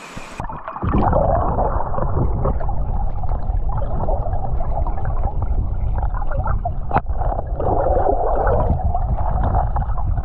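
Muffled underwater noise around a submerged camera: water gurgling and sloshing with a low rumble as a spearfishing diver moves in a stream. The sound turns muffled about half a second in as the camera goes under, and a single sharp click comes about 7 seconds in.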